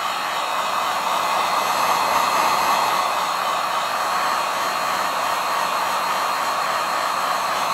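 Electric heat gun running steadily on its low setting, an even rush of blown air, aimed at iron-on plastic covering to heat and shrink out its wrinkles.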